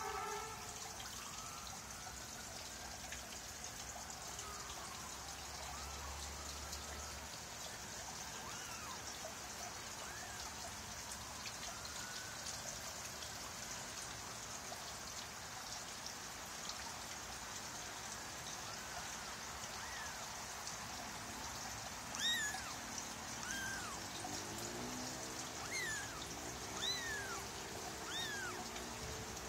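Young Persian kitten giving short, high mews now and then, each rising and falling in pitch, more often in the last third. A steady hiss runs underneath.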